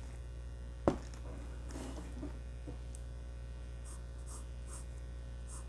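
Graphite pencil making short, faint strokes on drawing paper over a steady low mains hum, with one sharp knock about a second in.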